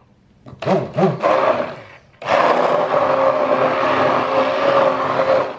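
Electric mixer switched on about two seconds in, running steadily at low speed with a constant hum while it beats an egg into cream cheese cheesecake batter, then stopping near the end. Before it starts there are two short rising-and-falling squeaky sounds.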